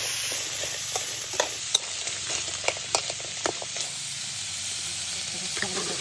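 Whole small crabs sizzling in sauce in a steel wok, with a spatula scraping and knocking against the wok as they are stirred. The strokes stop about two-thirds of the way through, and the sizzling goes on.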